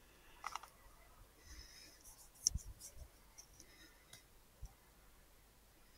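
Faint handling noise: a few scattered small clicks and soft rustles, the sharpest about two and a half seconds in.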